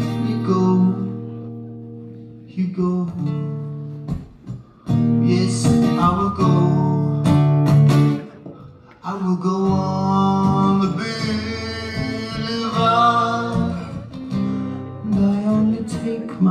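Live guitar music: chords and picked notes on guitar, which break off briefly about four seconds in and again about nine seconds in before carrying on.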